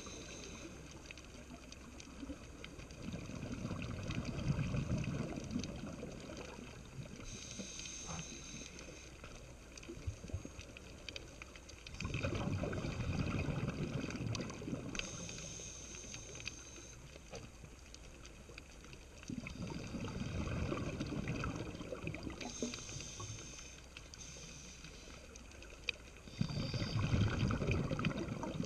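Muffled underwater water noise heard through a camera housing just below the surface: low rushing swells rise and fall about every seven seconds, over faint scattered clicks and crackle.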